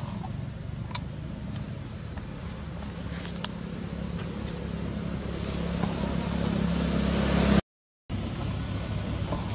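A motor vehicle's engine running: a low steady hum that grows louder over several seconds, broken by a sudden half-second dropout to silence near the end.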